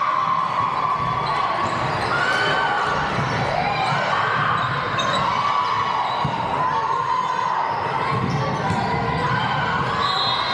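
Indoor volleyball rally in an echoing gymnasium: sneakers squeak on the hardwood floor, the ball is struck now and then, and players and spectators call out.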